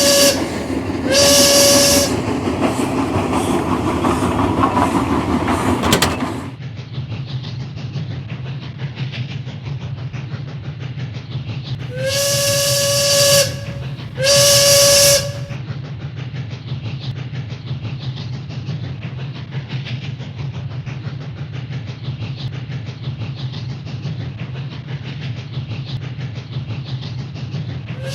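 A single-pitched whistle sounding in pairs of short blasts, at the start and again about twelve seconds in, over a steady low rumble. A loud hiss under the first six seconds cuts off suddenly.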